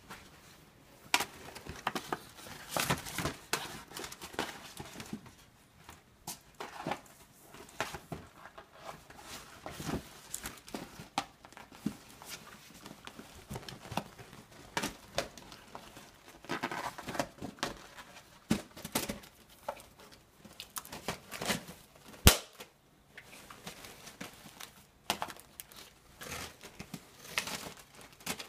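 A small dog rummaging at a cardboard gift box and its paper: irregular crinkling, rustling and tearing of paper with scrapes and taps of the box, and one sharp knock about two-thirds of the way through.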